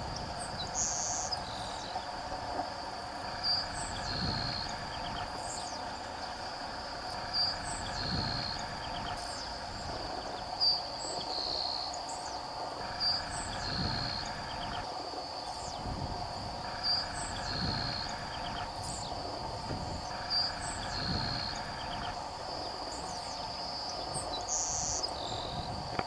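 Grassland sparrow (Ammodramus humeralis) singing its short song over and over, roughly every three seconds: a few thin high notes followed by a brief buzzy trill. A steady high hum runs underneath.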